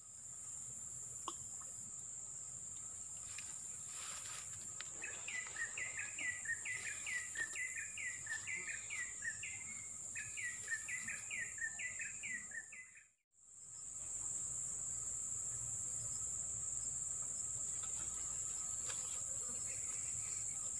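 Steady high-pitched drone of insects at the riverbank. From about five seconds in, a bird calls two quick runs of repeated notes, about two a second, for some seven seconds. All sound cuts out briefly a little after halfway.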